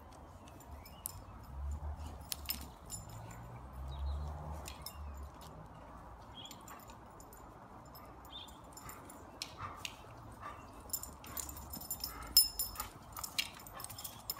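A St Bernard puppy and a black Labrador playing tug-of-war over a stick: low growls for the first few seconds, then scattered clicks and rustles from the stick, paws and grass.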